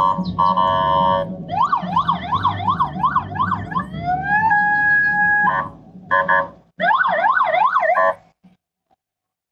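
An electronic car siren cycling through its sounds: a steady multi-tone blast, a fast warble, a rising wail that levels off, short blasts, then the warble again, over a low engine rumble. It cuts off suddenly a little after eight seconds in.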